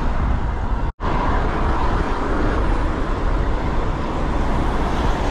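Wind buffeting a handlebar-mounted camera's microphone, with road noise from a bike riding along at speed. It drops out for an instant about a second in.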